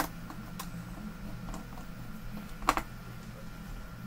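Light clicks and taps from a monitor's circuit board and a screwdriver being handled, the sharpest a quick double click a little under three seconds in, over a steady low hum.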